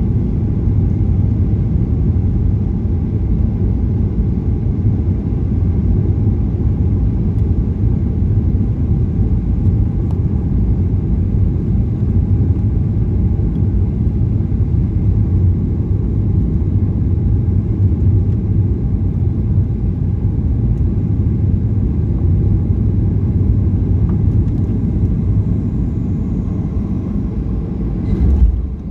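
Steady low rumble of a Boeing 737 on final approach, heard inside the cabin: the engines and the rush of air over the airframe. Near the end the rumble dips and a brief knock follows as the aircraft reaches the runway.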